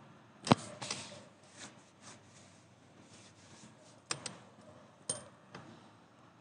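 A few sharp, irregular metal knocks and clinks as a steel wall angle for a plasterboard ceiling is hammered into place, the loudest about half a second in.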